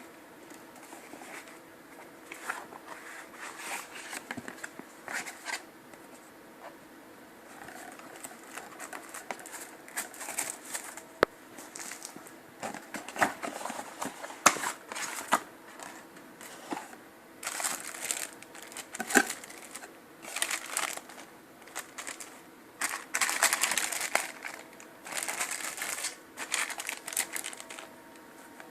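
Packaging being handled: irregular rustling and crinkling, with a few sharp clicks and knocks in between.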